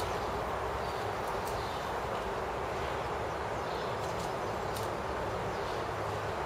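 Steady background hiss with a few faint, sparse clicks.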